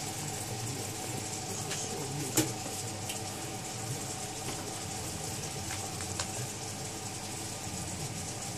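A dog licking a wound on a person's shin: wet licking with small clicks, the sharpest about two and a half seconds in, over a steady background hum.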